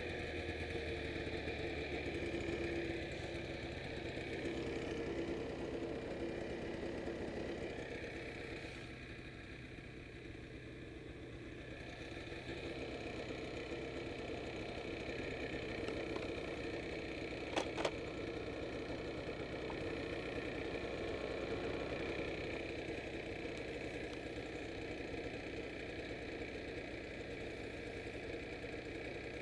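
Ski-Doo snowmobile engine idling steadily while the sled stands still, with a pair of sharp clicks a little past halfway.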